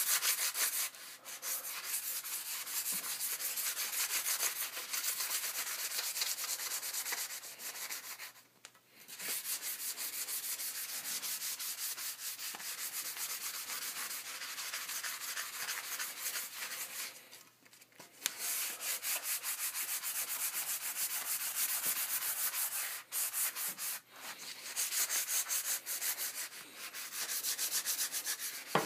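Sandpaper rubbed by hand over the shaft of a composite Bauer Total One NXG hockey stick in rapid back-and-forth strokes, scuffing the finish before spray painting, with a few short pauses.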